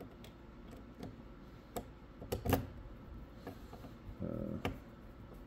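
Hand screwdriver driving small screws that hold a TV power supply board to the metal chassis: scattered clicks and scrapes of the tip and screw, the loudest about two and a half seconds in.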